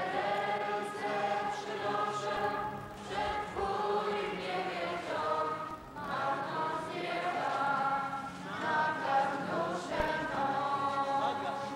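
Choral music: a choir singing long, sustained notes.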